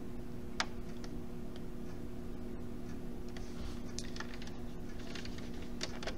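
Scattered light clicks and taps of a stylus on a drawing tablet as lines are drawn, the sharpest about half a second in and more of them in the second half. A steady low electrical hum runs underneath.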